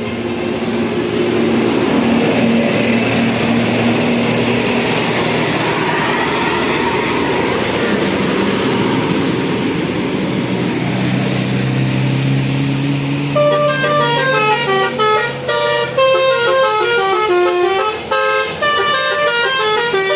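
Bus telolet horn, a multi-note Basuri musical horn, playing a fast melody of short stepped notes that starts about two-thirds through, after a stretch of steady vehicle noise.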